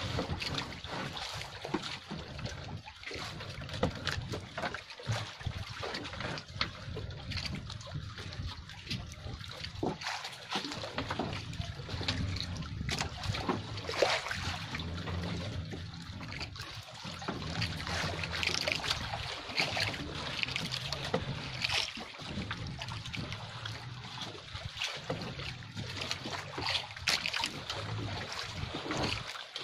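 Water splashing and dripping as a fishing net is hauled by hand over the side of an outrigger boat, over a low steady rumble.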